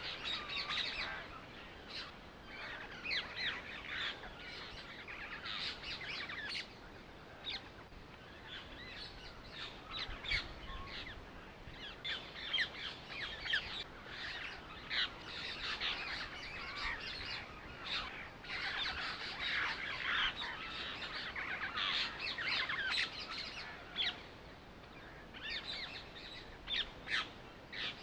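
Birds chirping and calling: a dense, continuous chatter of short calls with a few brief lulls.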